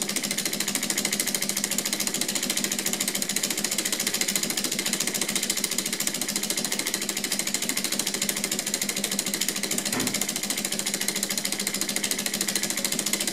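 3D-printed Stirling engine with glass syringe cylinders running steadily at speed, its con rods, pistons and flywheels making a fast, even clatter. The engine is warmed up, near thermal equilibrium.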